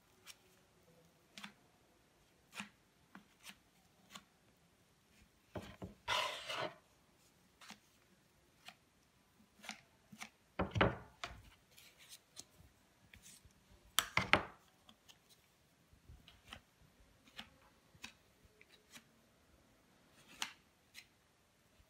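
Metal palette knife scraping and pressing clay paste into a plastic printing cartridge: scattered clicks and short scrapes, with three louder scrapes about six, eleven and fourteen seconds in.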